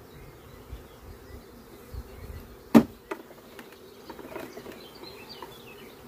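Carniolan honeybees buzzing steadily around an open hive. A single sharp knock sounds about halfway through.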